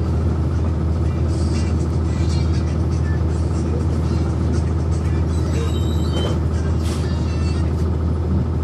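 Cummins ISC diesel engine of a 1999 NovaBus RTS transit bus heard from inside the cabin, running at one steady, unchanging pitch, with light clicks and rattles from the bus interior.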